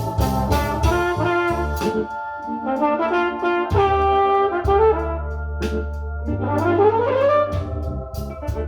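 Recorded blues song playing: an instrumental break with a horn line over bass and drums, one note sliding upward about seven seconds in.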